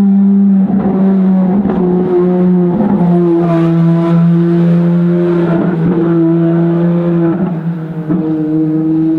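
Ferrari V12 race car engine running hard with a steady note that steps down slightly in pitch a few times, with brief sharp crackles through it.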